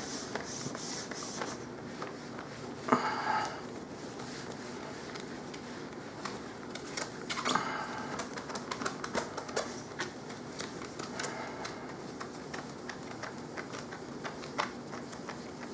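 Cloth rubbing and buffing a laptop screen by hand: soft, uneven swishing with many scattered light ticks and clicks, and a couple of brief louder rubs about three and seven seconds in.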